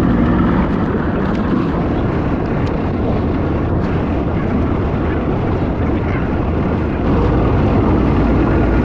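Fishing boat's engine running steadily underway, with water and wind noise; the level steps up slightly about seven seconds in.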